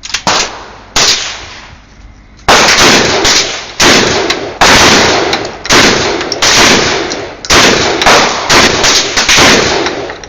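TriStar Raptor 12-gauge semi-automatic shotgun fired in a rapid string of a dozen or so loud shots, some less than half a second apart, each followed by a short echoing tail.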